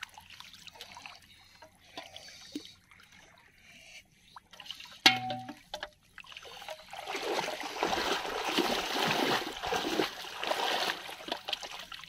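Shallow water splashing and trickling as hands work in it, heaviest in the last few seconds. About five seconds in, a single sharp knock rings briefly.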